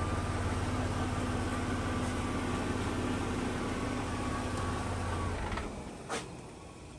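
2007 Saab 9-3 Aero's turbocharged V6 idling steadily, then switched off about five and a half seconds in, followed by a single sharp click.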